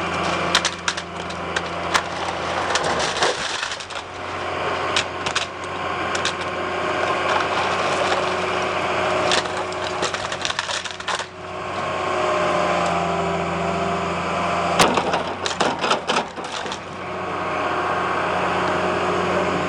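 Demolition excavator with a grab attachment breaking up material: a steady engine hum with repeated cracking, splintering and crunching.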